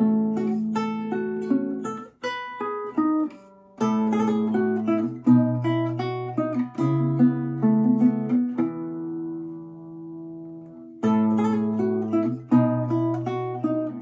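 Solo classical guitar, an 1852 Augustin Altamira Codina, fingerpicked: a run of plucked notes and chords. About nine seconds in, a chord is left to ring and fade for about two seconds before the playing picks up again.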